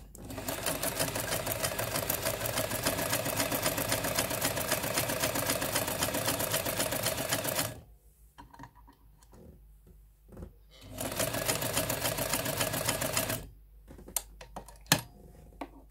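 Jones M949 vintage sewing machine sewing a zigzag stitch, running fast with a rapid, even needle clatter. It stops about eight seconds in and runs again briefly for about two seconds, followed by a few sharp clicks near the end.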